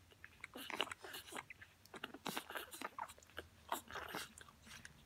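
Newborn French bulldog puppies suckling at their mother's teats: irregular wet smacking and clicking, several a second.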